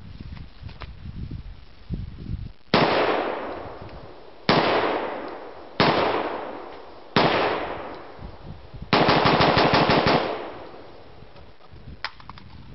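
Gun fired four single shots, one to two seconds apart, each ringing out in a long echo, then a burst of rapid automatic fire lasting about a second.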